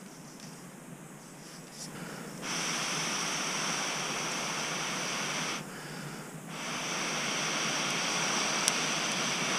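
Two long blows of breath through a metal fire blow tube onto glowing embers, each a steady rush of air lasting about three seconds with a short pause between, to coax the campfire back into flame.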